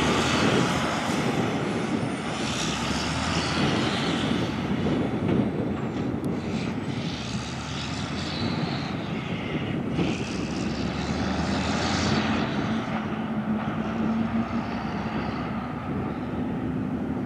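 Truck engine and tyres running steadily as a fertilizer tender truck drives away down the road. In the second half an engine tone rises slightly as it pulls on.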